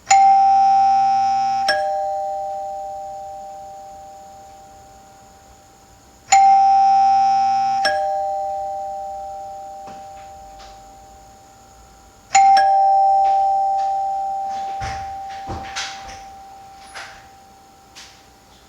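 Old wired electric doorbell chime sounding its two-note ding-dong three times, about six seconds apart: a higher note struck, then a lower one, each ringing out and slowly fading. A low buzz comes between the two notes of each ring, and a few small knocks follow the last one.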